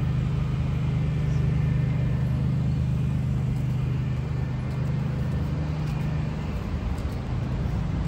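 Street traffic, with a motor vehicle's engine giving a steady low hum that fades about two-thirds of the way through.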